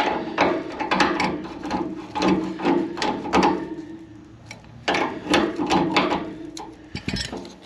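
Pliers clamping and twisting a plastic thermostatic radiator valve head on its metal valve body: a run of sharp clicks, creaks and rattles in two spells with a short lull midway. The head is seized on the valve.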